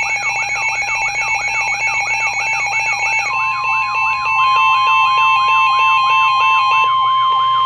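Electronic emergency alert tones: a fast, repeating rising whoop, about three to four sweeps a second, layered over steady tones. About three seconds in it is joined by a loud steady single-pitch tone, the NOAA Weather Radio warning alarm tone that comes before a warning broadcast.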